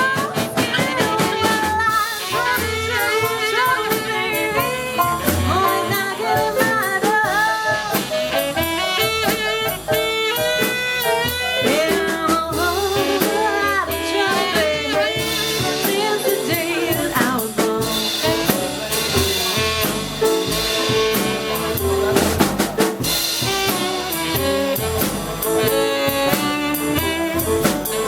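Jazz band playing an instrumental passage: a brass instrument leads with a wavering melody over a drum kit and rhythm section.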